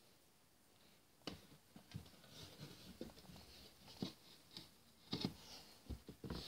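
Faint, scattered light taps and rustles of handling, beginning about a second in after a near-silent start.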